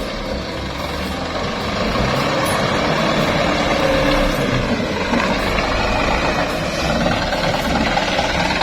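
A truck engine running steadily, an even, rough noise with no breaks.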